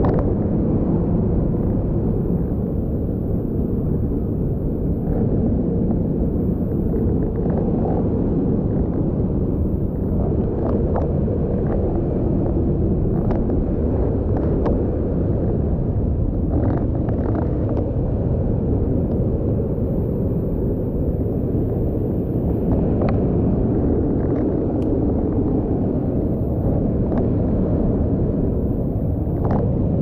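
Steady low rushing roar of a waterfall close at hand, with scattered light knocks and scrapes as the climber handles the rope and rock.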